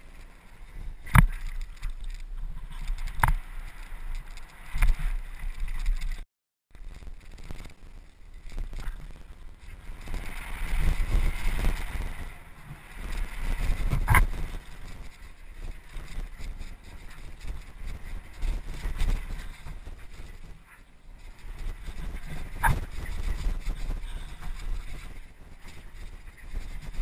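Trek Remedy 8 full-suspension mountain bike descending a dirt and gravel trail at speed, heard from a helmet-mounted camera: steady wind rush on the microphone and tyres on loose ground, broken by sharp knocks and rattles of the bike over bumps, loudest about a second in and again near the middle. The sound cuts out briefly about six seconds in.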